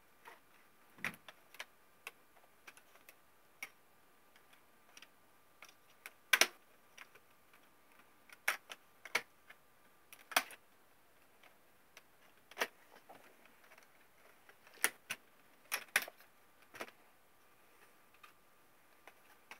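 Irregular clicks and taps of plastic and metal parts of an HP Pavilion tx1000 laptop being handled and fitted back together by hand, a few of them sharper and louder than the rest.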